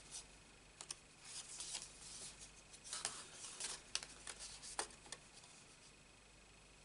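Faint rustling and light clicks of card stock being handled and flexed in the hands, as a freshly glued stamped panel is eased up on a folded card. The sounds stop about five seconds in.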